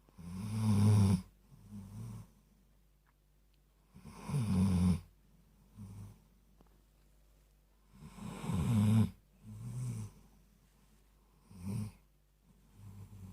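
Dobermann snoring in its sleep: three loud snores about four seconds apart, each followed by a softer one, then two weaker snores near the end.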